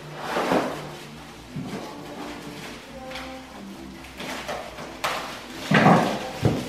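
Clear plastic wrapping rustling and crinkling as it is handled, loudest in a burst about half a second in and a longer burst near the end. Faint music with held notes plays underneath.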